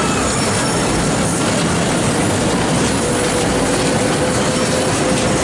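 Children's vehicle carousel turning, its platform and drive giving a steady mechanical rattle and clatter. A faint steady tone joins about halfway through.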